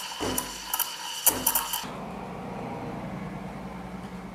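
Sage Bambino Plus steam wand steaming milk in a stainless jug: a steady hissing whistle broken by rapid irregular sputtering clicks, cutting off abruptly about two seconds in. A low steady hum follows.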